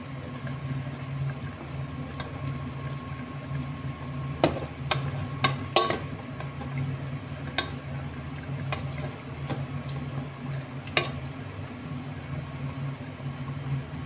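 A metal serving spoon clinking against a ceramic plate and pot as food is ladled out: a cluster of clinks a few seconds in, then single ones every second or so. A steady low hum runs underneath.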